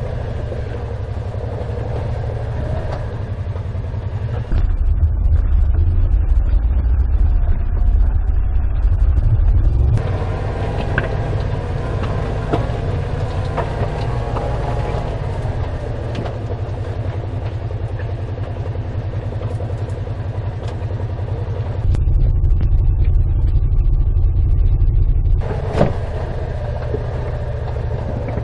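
Side-by-side UTV driving over a rocky trail, heard from inside its cab: a steady low rumble of engine and drivetrain. Twice, for several seconds each, the rumble grows louder and deeper.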